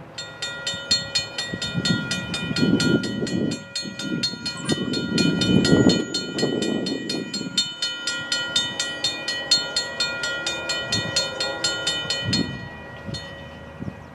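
Railroad grade-crossing warning bell ringing in fast, even strokes as the crossing gates come down, signalling an approaching train; it stops about twelve and a half seconds in. A low rushing noise swells underneath in the first half.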